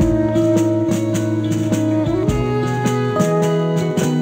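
Recorded band music: electric guitars over a held bass line and a steady drum beat.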